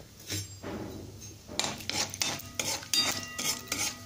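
Metal spoon scraping and clinking against a metal kadai, stirring mustard seeds and chana dal in hot oil. The strokes come quickly and repeatedly from about a second and a half in.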